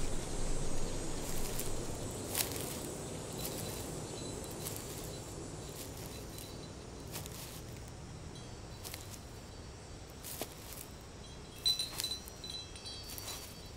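Outdoor ambience: a low rumble that slowly eases off, scattered sharp clicks, and a few short high ringing tones about twelve seconds in.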